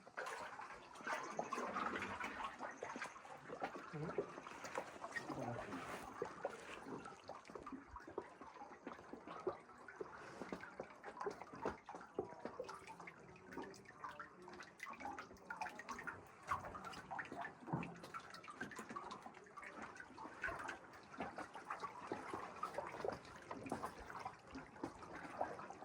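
Water splashing and dripping around a sea canoe as it is paddled: a steady run of small irregular splashes and drips.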